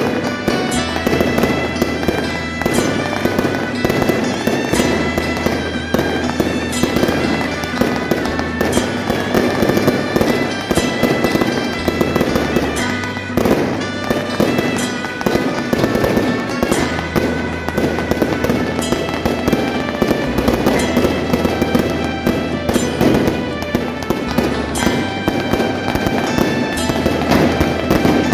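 A long, unbroken string of rapid firecracker pops, crackling densely over loud music with a steady bass line.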